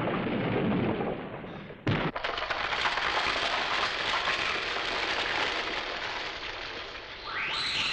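Battle sound effects: a rumbling wash, then a sudden crash about two seconds in, followed by a long, dense crackling like explosions or rock breaking up. Music comes in near the end.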